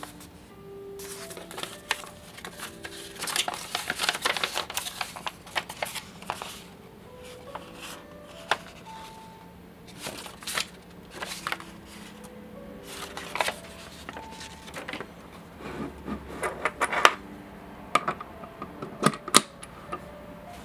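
Paper crinkling and rustling as a folded instruction leaflet is handled and opened out, with a few sharp clicks and knocks near the end as the plastic film loader is handled on the table. Soft background music of single held notes plays underneath.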